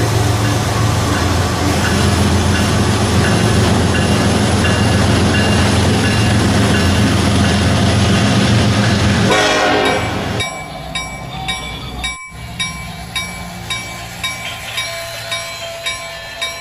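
Battery-powered toy trains running on plastic track, a loud steady motor and wheel rumble. About ten seconds in it drops away to a quieter tune with a light beat about twice a second.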